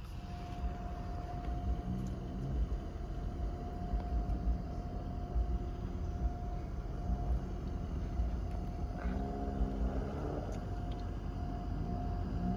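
A railroad crossing's warning bell rings steadily while a distant train horn sounds a few times, loudest about nine seconds in, over a low rumble of the approaching train.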